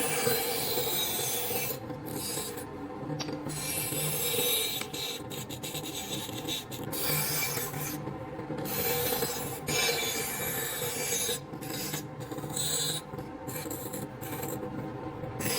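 Wood being abraded by hand-tool filing or sanding: continuous scraping strokes broken by several brief pauses.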